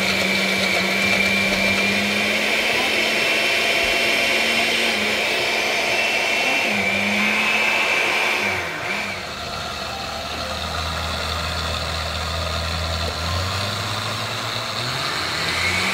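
Oster countertop blender motor running, its blades grinding hard tortilla chips (Takis) into fine crumbs. About halfway through the motor drops to a lower pitch and runs a little quieter, then rises again near the end.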